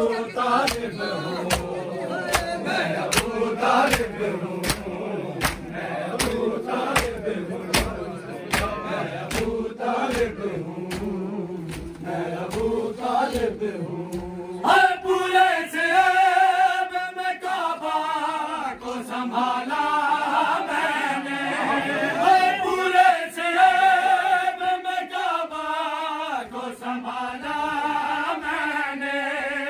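Male mourners chanting a noha with rhythmic matam, open-hand slaps on bare chests about twice a second. About halfway through, the slapping drops back and a lead reciter's sung voice comes forward over the group.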